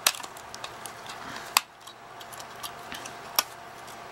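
Sharp plastic clicks and taps of a sleep apnea machine's circuit board and plastic housing being handled and separated, with three louder clicks among lighter ticks.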